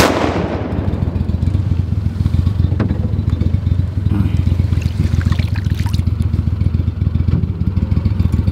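The echo of a shotgun shot dies away over the first second, giving way to a steady low rumble with a few faint clicks.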